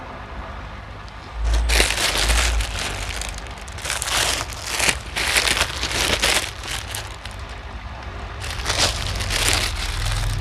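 Clear plastic garment bags crinkling and rustling in several bursts as packaged T-shirts are handled, with a couple of low thumps about a second and a half in.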